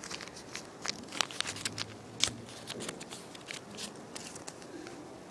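A strip of paper being folded and handled by hand, crinkling and crackling in many small, irregular clicks, the sharpest about two seconds in.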